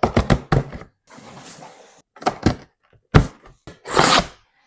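Handling noise from a cardboard package being opened: a run of sharp knocks and clicks, a softer scraping stretch, one loud knock and a longer noisy rasp near the end.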